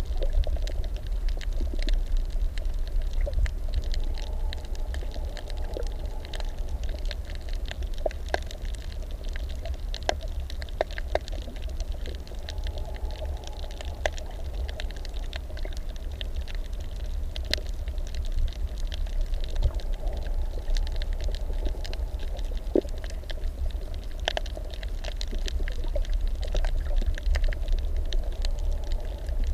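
Underwater reef ambience picked up by a submerged camera: a steady low water rumble with scattered crackling clicks throughout.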